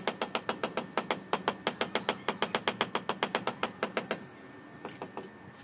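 Rapid, even tapping on a ceramic floor tile with a hand tool, about seven or eight knocks a second, to bed the tile into the mortar. It stops about four seconds in, and a few fainter taps follow.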